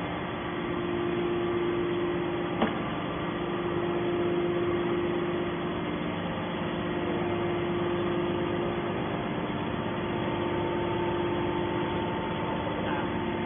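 Hydraulic scrap aluminium baler's power unit running with a steady hum, with one sharp click about two and a half seconds in.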